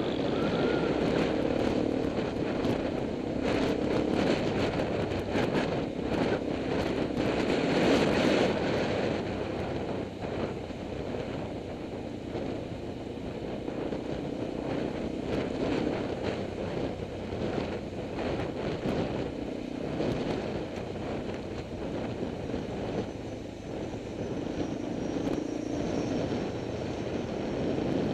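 Motorcycle engine running at road speed, its drone wavering up and down, with wind buffeting the microphone, heaviest in the first ten seconds.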